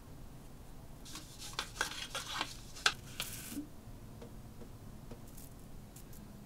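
A long plastic bottle brush and a glass tumbler being handled at a stainless steel sink: from about a second in, a couple of seconds of scratchy bristle rustling and light clicks, with one sharp click near the middle, then only a few faint ticks.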